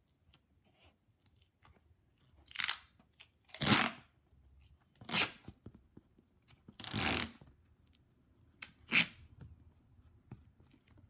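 Duck Tape duct tape being pulled off its roll in five short peels, spaced about one to two seconds apart.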